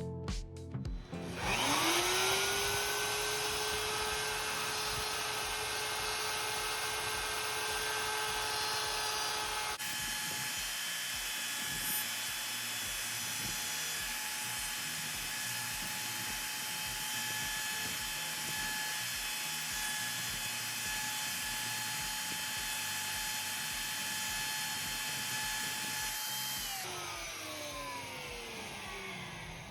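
Wood router's motor spinning up to a steady high whine and running at speed. The pitch jumps abruptly about a third of the way in, and the router winds down with a falling whine near the end.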